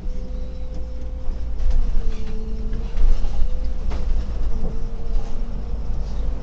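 Solaris Urbino 18 articulated city bus under way, heard from the driver's cab: a heavy steady engine and road rumble with a thin whine holding near one pitch and a few light knocks. The rumble grows over the first couple of seconds, then runs evenly as the bus moves off along the road.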